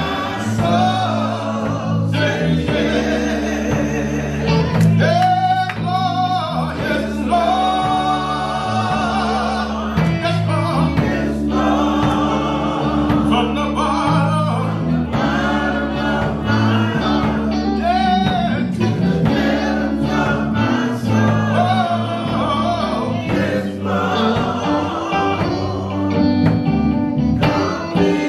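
Gospel praise music: voices singing over instruments, with a steady bass line under the singing.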